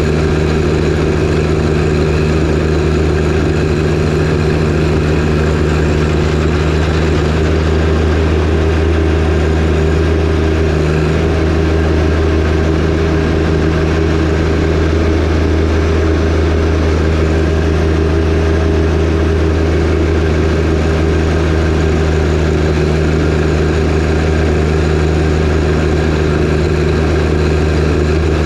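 John Deere 1025R compact tractor's three-cylinder diesel engine running at a steady, unchanging speed.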